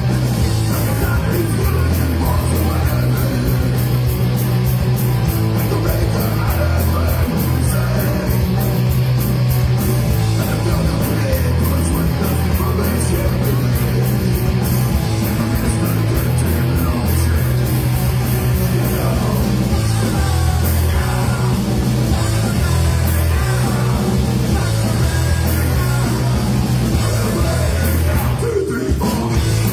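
Live rock band playing loud, fast heavy rock with a strong bass line, a steady rapid cymbal beat and shouted vocals.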